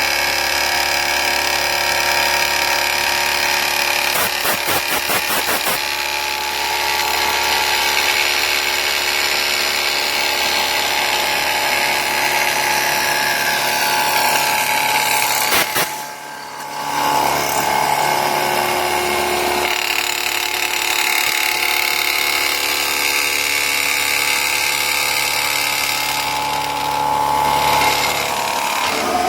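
Pratt & Whitney Tapemate C CNC mill running, its spindle and cutter milling an aluminum bracket with a steady whine of several tones. A short rapid rattle comes about four seconds in, and the sound dips briefly around the middle before the cut resumes.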